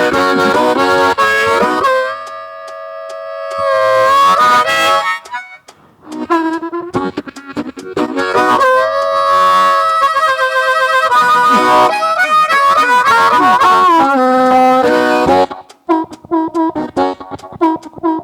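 Blues harmonica played solo in a train-imitation piece. It plays wailing, held chords that bend in pitch, and near the end breaks into a fast chugging rhythm of short repeated chords.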